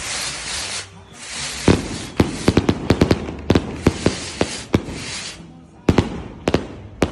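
A 1.3G 'Rain God' aerial firework firing. A loud hiss comes first, then from just under two seconds in a rapid run of sharp cracks and pops as its gold stars burst, thinning out near the end.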